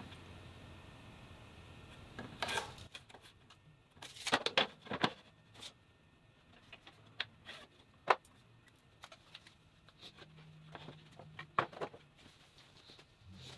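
Scattered clicks and light knocks of hand tools being handled on a thin wooden board: a tape measure and a spirit level set down and moved about, with a cluster of louder knocks about four seconds in.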